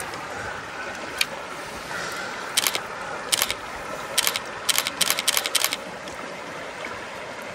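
Steady rush of a shallow stream's flowing water. About a third of the way in, a run of short sharp clicks starts, several in quick succession before it stops.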